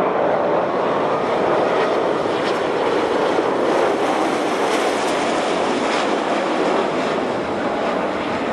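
Loud, steady jet noise from the Airbus A380-841's four Rolls-Royce Trent 970 turbofans as the airliner flies low past on its landing approach with the gear down.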